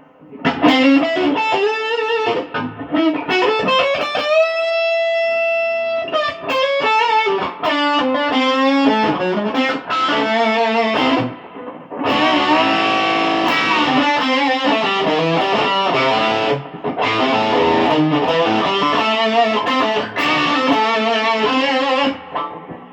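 Electric guitar played through a tube amplifier freshly fitted with new power tubes, as a sound check. It plays a melodic lead line, with a note bent up and held with vibrato about four seconds in, then fuller, denser playing from about twelve seconds, stopping just before the end.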